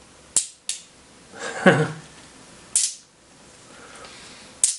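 Small magnets clicking sharply together as they are handled, a couple of times less than a second in and once more near the end, with soft rustling of plastic wrapping in between.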